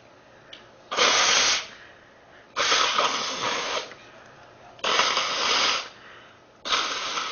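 A girl coughing: four rough, breathy coughing bursts, each lasting about a second, coming every couple of seconds.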